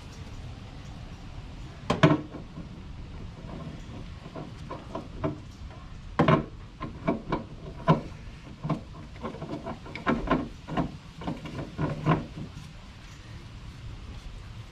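Irregular knocks, clicks and rubbing as a new spin-on oil filter is handled and threaded by hand onto the oil filter mount of an air-cooled 1983 Porsche 911SC, over a steady low hum. The clicks come in clusters, thickest from about six to twelve seconds in.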